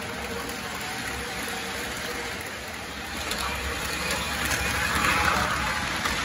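HO-scale Tyco model train running on its track, the small electric motor whirring and the wheels rolling. It gets louder about three seconds in as the locomotive and cars pass close by.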